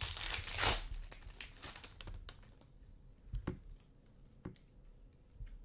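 Plastic trading-card pack wrapper crinkling as it is handled and torn open, dense at first and thinning out after about two seconds, followed by a few light taps and clicks of cards being handled.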